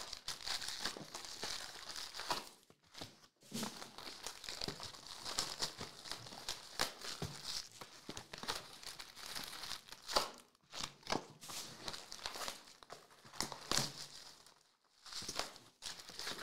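Pokémon card booster-box packaging and foil booster-pack wrappers crinkling and tearing as they are ripped open by hand, a fast, irregular run of crackles and tears with a couple of short pauses.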